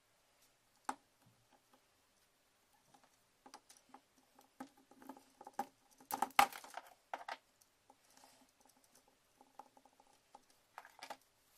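Handling noise from a plastic Apple MagSafe power adapter and its cable on a cutting mat: scattered small clicks, taps and rustles, with a sharp click about a second in and a denser, louder cluster of clicks and rustles about six seconds in.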